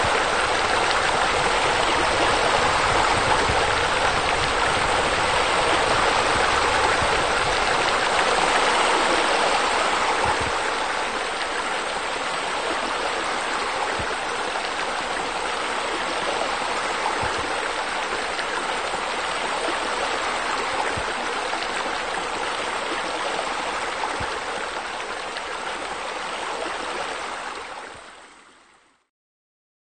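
Steady rushing and splashing of water falling from pool water features, a spa spilling over into the pool and wall scuppers. It eases a little about a third of the way in and fades out near the end.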